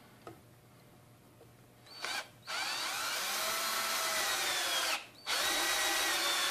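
Kimo 20V cordless drill turning a flexible shaft extension to drive a Phillips screw into the underside of a board. A short blip of the motor about two seconds in, then two steady runs of a couple of seconds each with a brief pause between.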